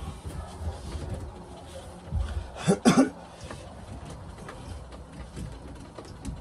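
A man coughs briefly, once, about three seconds in, over faint knocks and handling noises of hands working in a tight space.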